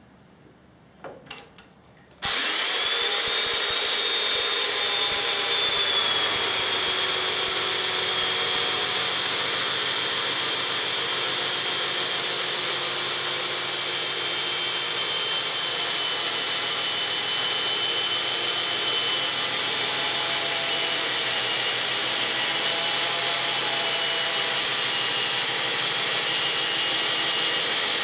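Electric chainsaw mortiser switching on about two seconds in after a few short clicks, then running steadily as its chain cuts a mortise into a large cedar timber. A high whine climbs as the motor comes up to speed, then sinks slowly lower as the cut goes on.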